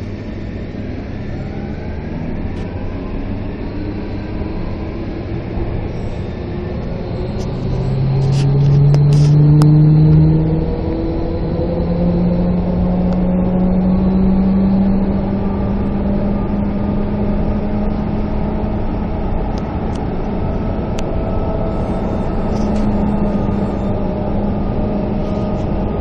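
Milan Metro Line 5 train heard from inside the car, running between stations: steady rail rumble under the electric motors' whine, which rises in pitch as the train gathers speed and levels off about halfway through.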